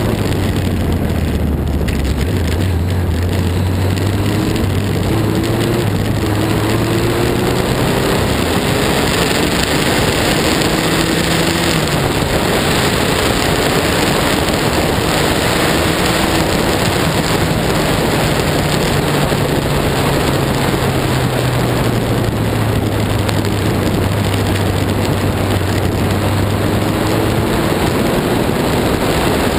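Onboard sound of a Lotus 61 Formula Ford racing car's engine at speed, its pitch climbing and dropping back as it accelerates and shifts, under a heavy, steady hiss of wind and spray from the wet track.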